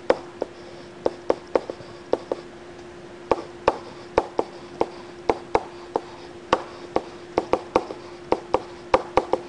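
A stylus tapping and clicking on a tablet screen during handwriting: sharp, irregular clicks at about three a second, with a short pause near the middle, over a faint steady hum.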